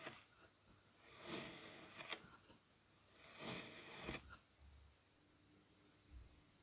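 Kinetic sand being cut and scooped: two soft, gritty scraping strokes about two seconds apart, each ending in a sharp click.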